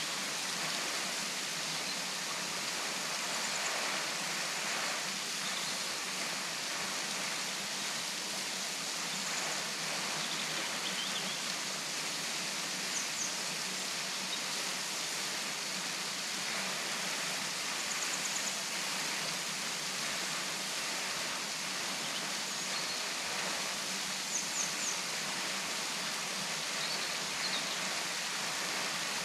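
Henrhyd Falls waterfall pouring, a steady full rush of falling water, with a few short, faint high chirps over it now and then.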